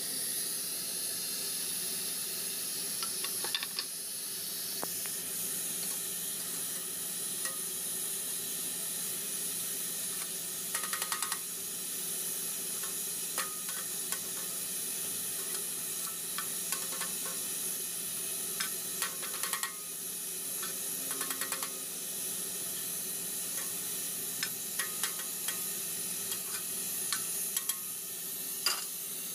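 Flour-coated chicken gizzards deep-frying in hot oil in a stainless steel pan: a steady sizzle with scattered sharp pops and clicks, some in short quick clusters.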